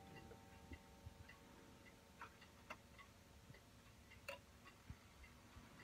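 Faint, steady ticking of the Seth Thomas Hecla mantel clock's escapement, with a few sharper clicks among the ticks. The last ring of a chime note dies away in the first couple of seconds.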